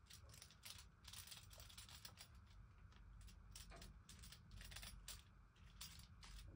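Faint, quick scrapes of a hand vegetable peeler shaving a block of butter, about three strokes a second.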